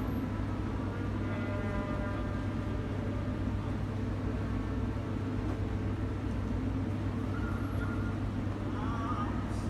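Street noise: a steady low rumble of traffic, with a few faint steady engine tones at the start and faint voices near the end.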